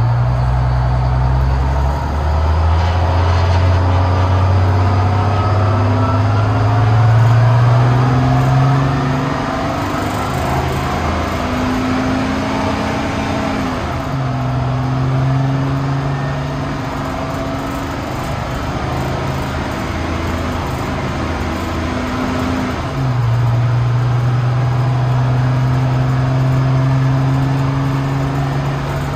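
1980 American LaFrance pumper fire truck's engine pulling through the gears, heard from inside the cab. Its pitch climbs steadily and then drops back sharply at each upshift, about 10 and 14 seconds in, and the truck accelerates again a little after 23 seconds.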